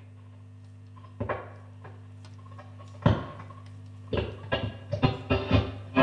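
1937 Marconi 549 valve radio console being tuned across the band: a low steady hum with brief snatches of stations about one and three seconds in, then music coming in from about four seconds as a station is found.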